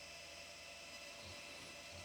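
Faint steady hiss and hum, with two soft low thumps about a second apart near the end.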